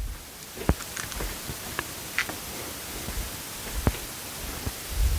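Handling noise: scattered light clicks and knocks at irregular times over a steady background hiss.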